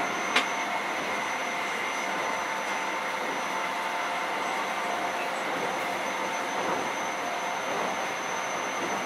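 Interior running noise of a Keio 7000 series commuter train, heard from inside a passenger car: a steady running noise with a few faint, unchanging tones, and a single sharp click about half a second in.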